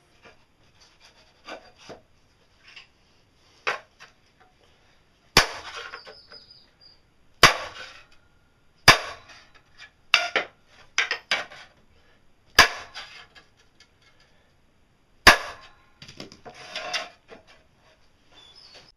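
Steel parts clanking against each other and a steel workbench as a homemade differential assembly is handled and fitted: about six sharp metal clanks a second or two apart, with lighter rattles and scrapes between.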